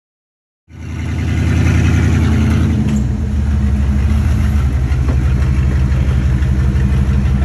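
An off-road vehicle's engine running steadily at low revs. It cuts in abruptly just under a second in.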